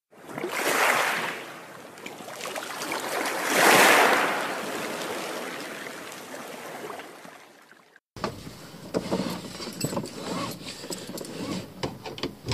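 Two swelling rushes of watery, bubbling noise, a sound effect of something plunging underwater; the second is louder and fades away slowly. After a sudden cut, a car seatbelt rustles and clicks as it is pulled across and buckled.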